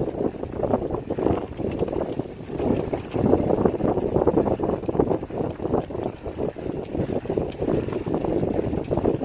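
Wind buffeting the microphone of a camera moving along a trail: a continuous rushing rumble that keeps surging and dipping.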